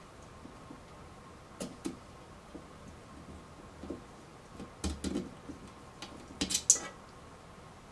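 Steel spring pin and hinge at the side pivot of a visored barbute being worked by hand to free the visor: scattered small metallic clicks and taps, with the loudest cluster near the end.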